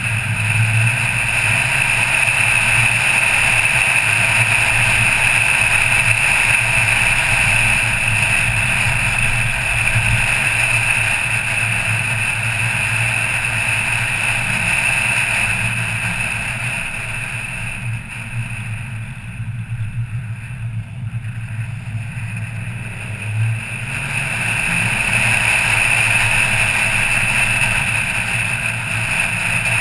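Car driving, heard from inside the cabin: a steady low engine hum under tyre and road noise. It turns quieter and duller for a few seconds past the middle, then picks up again.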